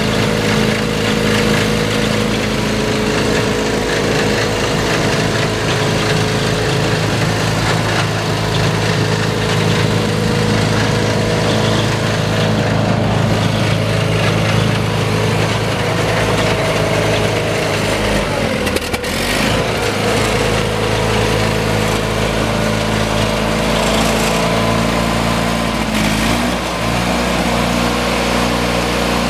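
The Onan Performer 16XSL small gasoline engine on a grain weigh wagon runs steadily. Its pitch dips briefly about two-thirds of the way through, then recovers.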